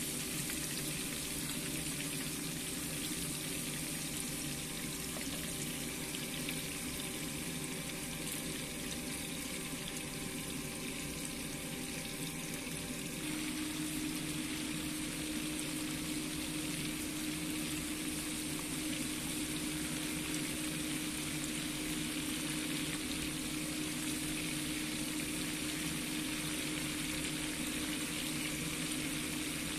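Mackerel frying in bubbling hot oil in a pan, with a steady sizzle. About halfway through, a steady low hum comes in.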